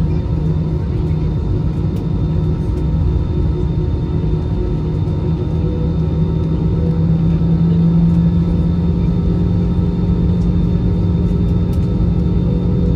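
Steady cabin drone of an Airbus A320-216 taxiing, its CFM56-5B engines at low taxi thrust, heard from a window seat over the wing: a continuous rumble with a constant low hum, a little louder around the middle.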